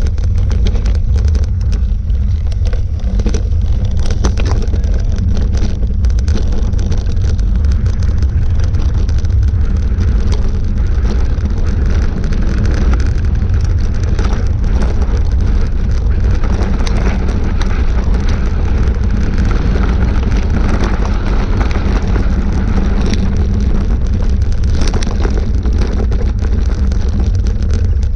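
A vehicle engine running steadily as it drives along a dirt and gravel track, under heavy wind rumble on the microphone, with scattered knocks and rattles from the rough surface.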